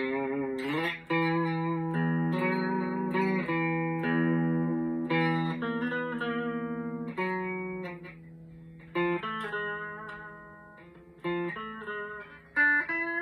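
Slick SL50 Telecaster-style electric guitar being played: chords and single notes picked and left to ring out with long sustain. It fades quieter about two-thirds of the way through, then shorter picked notes come near the end.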